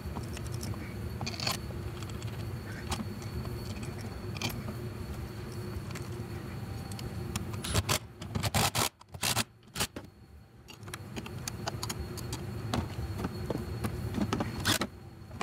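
Hands handling a plastic wiring connector and metal parts at a car's gear-shift housing: scraping and scattered small clicks over a steady background hum. The sound drops away briefly about nine seconds in.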